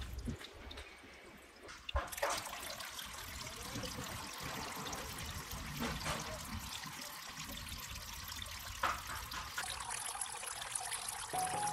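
Small cement-bowl water cascade: water starts running about two seconds in, then trickles steadily from the pipe spouts and splashes down into the fish tank.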